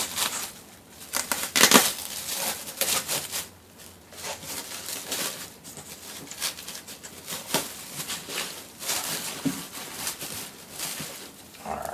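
Packaging crinkling and rustling in irregular bursts as a model kit part is unwrapped and handled.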